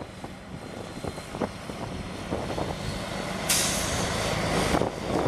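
The truck's Mercedes-Benz OM460 12.0-litre inline-six diesel idles steadily. About three and a half seconds in, a sharp hiss of released compressed air from the air-brake system lasts just over a second and cuts off suddenly.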